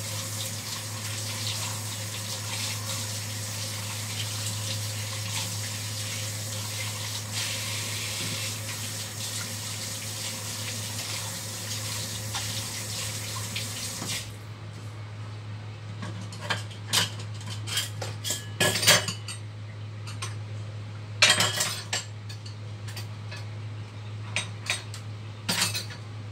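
Kitchen tap water running into the sink as meat is rinsed by hand, shut off abruptly about halfway through. After that come scattered clinks and knocks of things handled in the sink, the loudest in a cluster about two-thirds of the way in.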